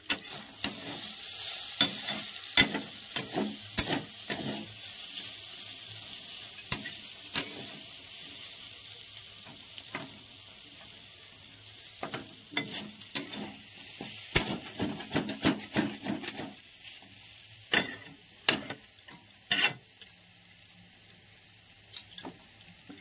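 Sliced potatoes frying in hot oil in a pan, sizzling steadily, while a spatula stirs them and knocks and scrapes against the pan with frequent clicks. The sizzle quietens in the second half.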